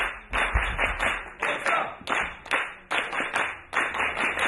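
Audience clapping in unison to a steady beat, about two to three claps a second, with a low thud about half a second in.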